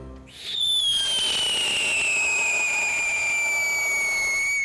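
Whistle gerb firework burning: a short rush of noise as it catches, then a loud, shrill whistle over a hiss, its pitch falling slowly, lasting about four seconds, the burn time it was made for, before it stops near the end.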